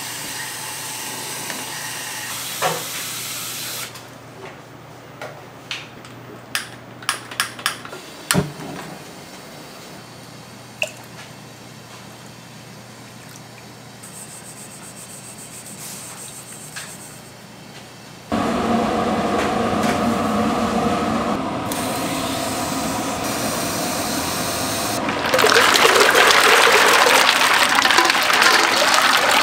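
Kitchen sounds: a steady hiss, then a quieter stretch with a handful of light clicks and knocks. Water starts running hard suddenly about two-thirds of the way in and grows louder near the end.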